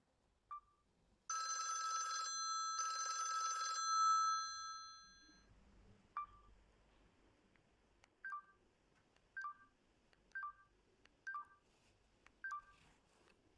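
Samsung GT-S5610K mobile phone playing a bell-like alert tone: a chiming note sounded twice that rings out and fades, then a string of short two-note beeps about once a second.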